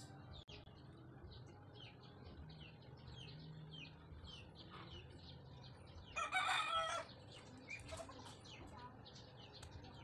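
A rooster crows once, briefly, about six seconds in, the loudest sound here. Small birds chirp quietly throughout.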